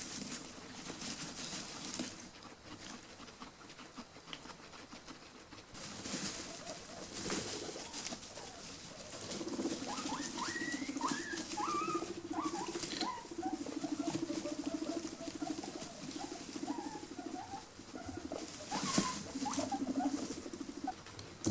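Guinea pigs rustling and moving about in their bedding. From about nine seconds in, a low, rapidly pulsing rumble starts, broken by short gaps, with short high squeaks over it.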